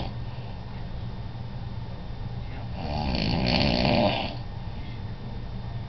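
A man snoring in his sleep: one snore lasting about a second and a half, starting about two and a half seconds in, with quieter stretches between breaths.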